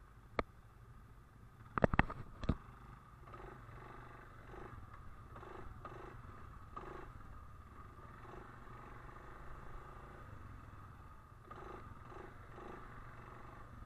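ATV engine running at low speed, a steady low putter with soft uneven pulses, with a few sharp knocks about two seconds in.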